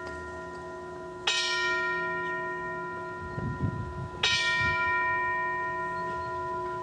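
A bell struck twice, about three seconds apart, each stroke ringing on with a long, slowly fading tone. It is rung at the elevation of the chalice after the consecration at Mass.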